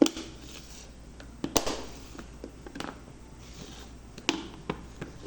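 Sharp plastic clicks and knocks of an electric lunchbox being closed, its lid pressed down and its latches snapped shut, about half a dozen over a few seconds, the loudest at the very start.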